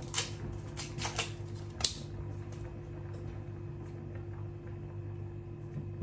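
Foil being torn and peeled off the neck of a sparkling-wine bottle: a few sharp crinkles and clicks in the first two seconds, then a steady low hum with faint ticks as the cork is worked.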